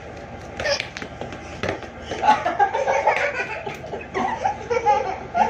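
Young children laughing and giggling during play, with a couple of short knocks in the first two seconds.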